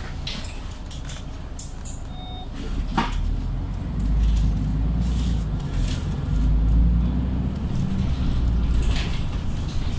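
Engine and drivetrain of a Mercedes-Benz Citaro G C2 articulated bus heard from inside the cabin, a low rumble that grows louder about three to four seconds in as the bus pulls away and gathers speed. A sharp click about three seconds in, and light interior rattles throughout.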